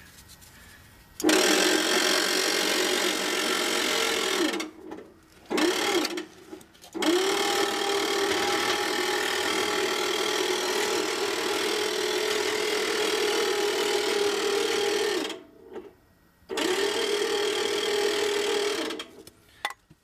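Electric winch motor lifting the Case backhoe's shuttle-shift transmission on a strap. It runs in four bursts, each a steady whine that rises in pitch as the motor spins up; the longest runs about eight seconds.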